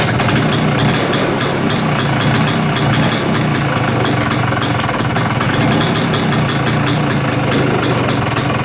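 Piaggio Vespa PX scooter's single-cylinder two-stroke engine idling steadily.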